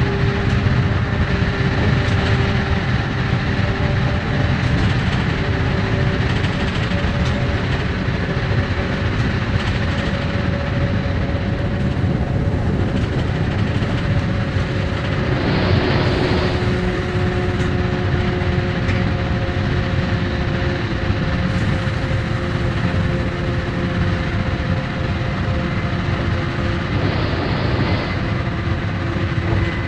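Running noise of an AVE high-speed train at speed, heard from aboard: a steady dense rumble with a few held tones at fixed pitch, and two brief rushes of higher hiss, one about halfway through and one near the end.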